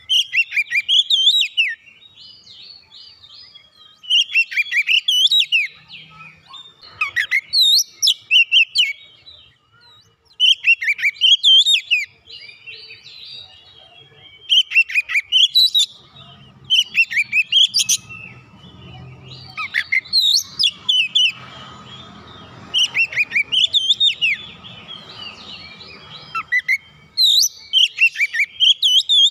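Oriental magpie-robin (kacer) singing in the aggressive 'fighter' style: loud phrases of rapid, gliding whistled notes, each lasting one to two seconds, repeated after short pauses. A faint low rumble sits underneath through the middle stretch.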